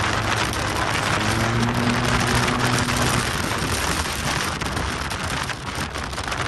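Wind rushing over the microphone of a moving Yamaha TMAX scooter, with a steady engine hum underneath that fades into the wind after about three seconds.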